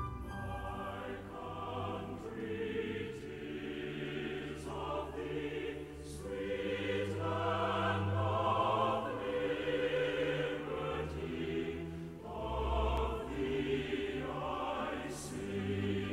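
Choral music: a choir singing slow, sustained notes.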